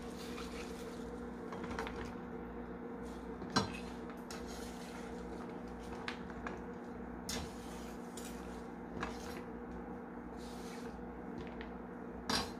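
Soft scrapes and light knocks of a knife and hands moving chopped zucchini and onion off a wooden cutting board onto a plate, the sharpest knock about three and a half seconds in. A steady low hum runs underneath.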